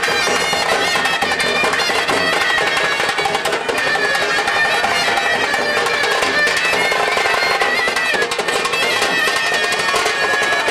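Street band playing: a reed pipe holds long, high melody notes over beats on shoulder-slung double-headed drums.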